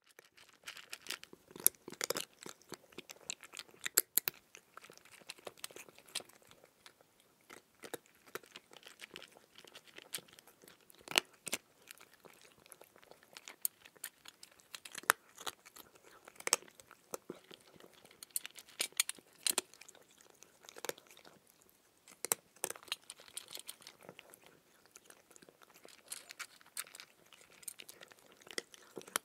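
Someone biting and chewing raw cucumber: a run of irregular crisp crunches, with a few louder ones scattered through.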